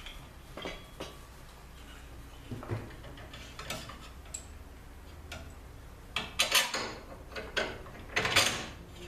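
Small metal clicks and clinks of hardware being tightened: a nylon lock nut being snugged onto a bolt of a ceiling-mounted kayak hoist bracket. Two louder scraping rustles come near the end.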